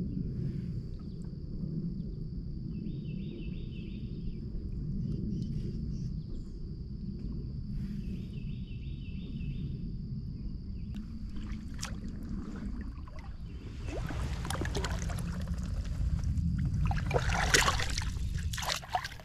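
Water splashing in bursts that grow louder over the last several seconds, over a steady low rumble and a constant thin high whine. Two short runs of small chirps sound in the first half.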